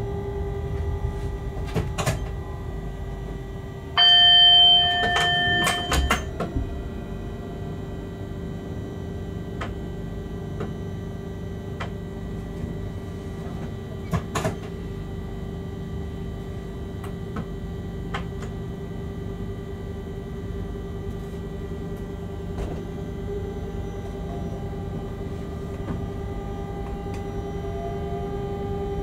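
Freight locomotive cab while running: a steady electrical hum with scattered clicks and ticks. About four seconds in, a loud electronic beep sounds for about a second and a half, followed by a few sharp clicks.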